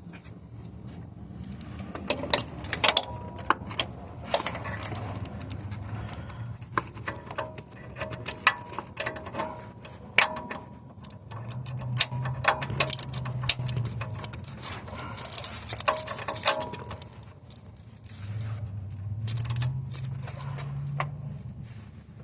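Irregular metallic clicks and clinks of a wrench and socket working on an oxygen sensor in a Jeep 4.0 engine's exhaust, as it is broken loose. A low hum rises and fades twice in the background.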